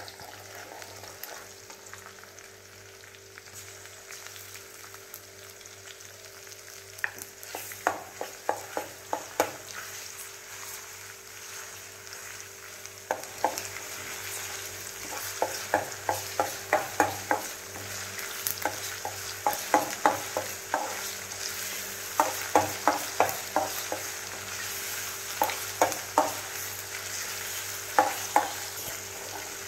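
Chopped onions sizzling in hot oil in a metal kadhai while being stirred with a metal spoon: a steady sizzle, with bursts of quick scraping clinks of the spoon against the pan that start about seven seconds in and come more often in the second half.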